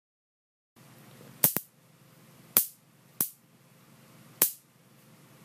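Modified Harbor Freight electric fly swatter, its outer bars rewired to alternating polarity, sparking in sharp loud snaps as high voltage arcs across the bars. Two snaps come close together about a second and a half in, then three more follow about a second apart.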